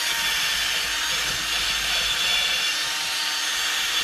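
Power-driven rotary wire brush spinning steadily and scrubbing rust out of the centre bore of a cast-iron brake rotor: a constant motor whir under a harsh, hissing scour of wire bristles on steel.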